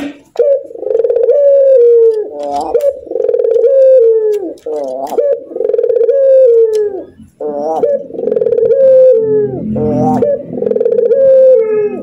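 Ringneck dove (puter) giving its rolling 'laughing' call, five long pulsing coos in a row, each dropping in pitch at its end, with a short rising note between them.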